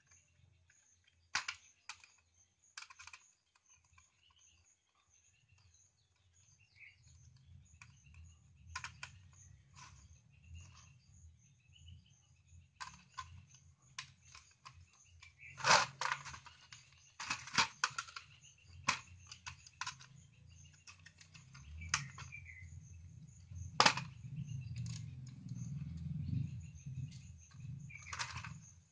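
Screwdriver clicking and scraping on the small screw terminals of switchboard switches as a copper jumper wire is tightened down: scattered sharp clicks, two of them loudest about halfway and about three-quarters of the way through. A low hum rises underneath from a few seconds in.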